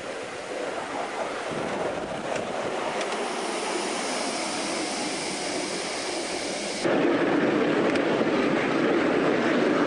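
Ride-on miniature railway train running along the track: a steady clatter and rumble of wheels on rail. It jumps suddenly louder about seven seconds in, as if heard right on the train.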